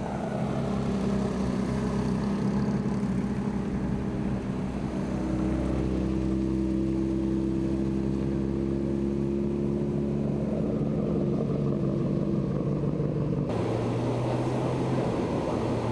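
Car engine running at low revs, its note drifting slowly in pitch; about thirteen seconds in it changes abruptly to a different steady engine note.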